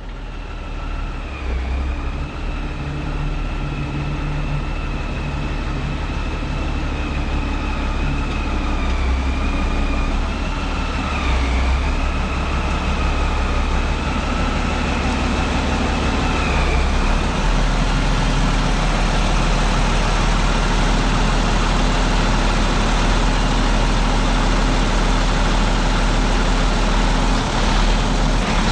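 Heavy engine running steadily with a low rumble, a high wavering whine over it for the first half that then stops.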